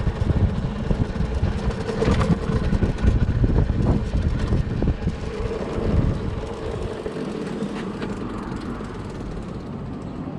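Wind buffeting the microphone, with road noise from a KTM 790 Duke converted to electric drive as it rides along. The noise eases off about six and a half seconds in as the bike slows and rolls into the garage.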